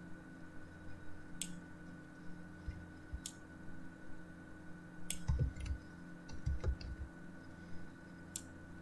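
Sharp, scattered clicks of computer input (mouse, pen tablet or keys) during digital drawing, with a denser cluster of clicks and low dull knocks between about five and seven seconds in, over a steady electrical hum with a faint constant tone.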